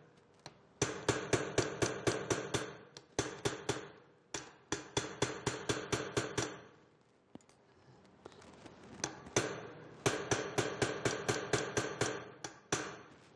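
Hammer striking a steel rivet-setting fixture held on a rivet, setting the rivet by hand. Quick light blows come about five a second in several runs, with short pauses between them and a longer pause past the middle. Each blow gives a short metallic ring.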